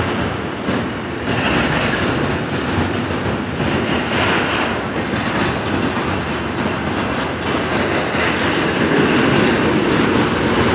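Union Pacific double-stack container train's well cars rolling past, a steady, continuous noise of steel wheels on rail that grows slightly louder near the end.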